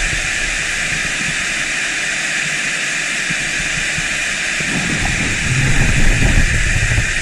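Steady rush of water pouring over a dam spillway. A low rumble joins it about five seconds in.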